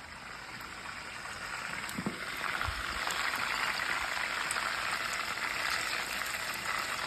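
Chicken deep-frying in hot oil in a pot, a steady sizzle that grows louder a couple of seconds in, with a brief soft knock near the middle.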